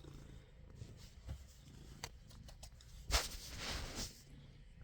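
Domestic cat purring faintly, a low pulsing rumble, with a brief rustle about three seconds in.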